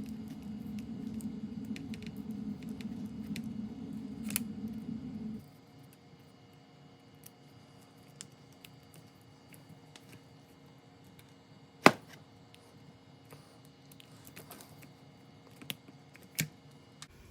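Small clicks and taps of plastic parts and a screwdriver as a Traxxas EZ-Start is screwed onto an RC truck's chassis, with one sharp click about twelve seconds in. A steady low hum runs under the first five seconds and stops suddenly.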